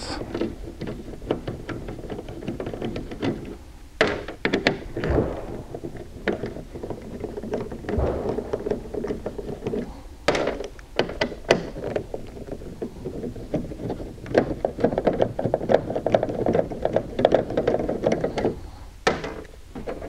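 A 7/16 socket and extension knocking and clinking against the steel trunk lid of a 1967 Mercury Cougar as they are worked toward the trunk-lock nut. The sound is a series of sharp knocks and thunks, with a stretch of quick rattling clicks near the end.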